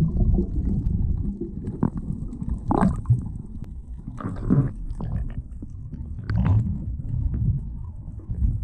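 Water heard from a camera held underwater: a low, muffled rumble of moving water stirred by a swimmer, broken by a few short, brighter bursts of bubbles and splashing at the surface.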